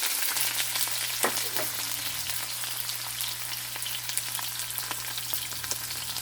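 Chopped red onions and garlic sizzling in hot oil in a pan, sautéing, with scattered crackles over a steady hiss that eases slightly over the seconds.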